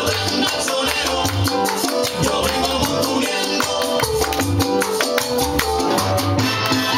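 Cuban son music playing for partner dancing, with a steady percussion rhythm over a bass line.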